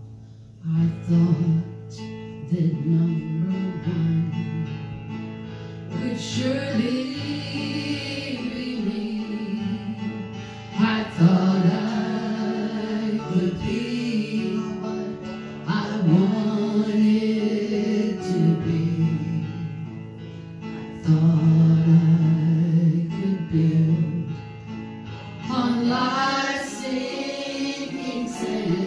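Gospel worship song: a voice singing over guitar accompaniment.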